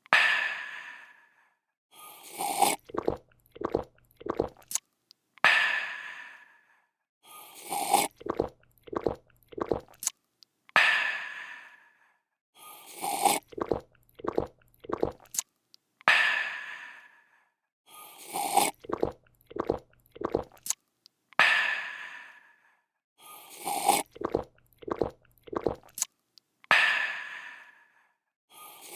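A looped sound effect of a person drinking: short gulping and swallowing clicks, then a loud breathy, refreshed 'aah'. The cycle repeats about every two and a half seconds, about eleven times.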